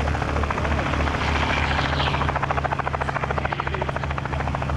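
Robinson R44 helicopter lifting off into a low hover, its two-blade main rotor chopping in a rapid, even beat over the steady hum of the engine and rotors.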